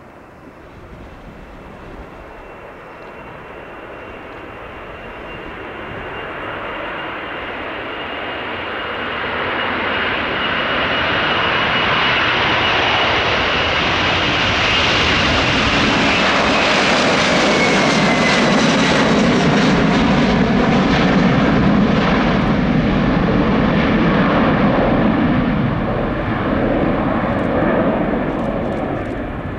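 Boeing 767-400ER's two General Electric CF6 turbofans at takeoff thrust, growing steadily louder as the jet rolls and lifts off past, with a high fan whine that drops in pitch as it goes by. A deep rumble follows as it climbs away, easing off near the end.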